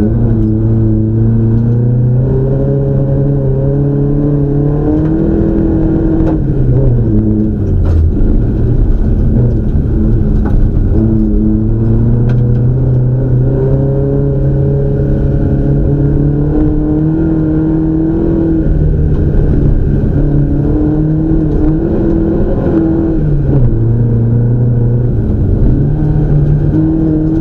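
Peugeot 504 coupe's engine heard from inside the cabin, driven hard: the pitch climbs and holds under throttle, then drops away several times with lifts and gear changes before climbing again.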